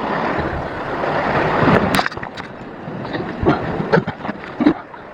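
Steady rushing noise of wind and sea that drops away about two seconds in, followed by scattered knocks and clatters.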